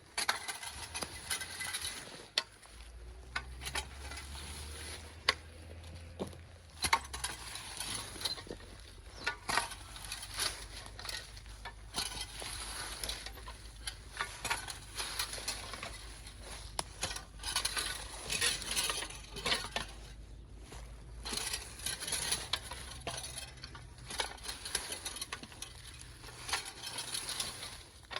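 Dry fallen cedar branches being gathered and handled: their needles and twigs rustle and crackle, with frequent sharp snaps and clicks.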